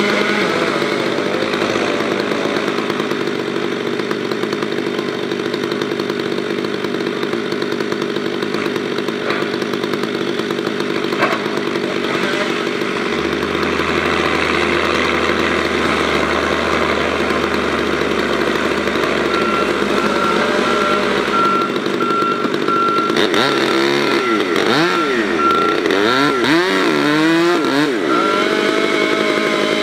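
Chainsaw running continuously while cutting into the trunk of a beech tree, its pitch rising and falling with the throttle in the last few seconds. A series of short, evenly spaced high beeps sounds through the second half.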